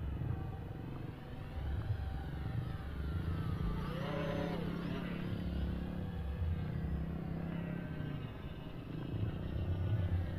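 Homemade RC model aeroplane's motor and propeller whining as it flies, the pitch rising and falling as the plane turns and passes, over a low rumble.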